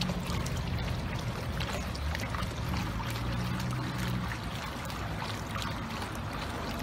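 Garden water feature running: a fountain jet and water spilling off a ledge into a pond, a steady splashing and trickling with a low rumble underneath.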